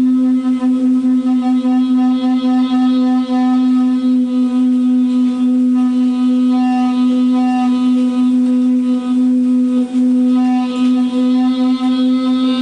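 A single sustained drone note held at one unchanging pitch, with its higher overtones swelling and fading over time.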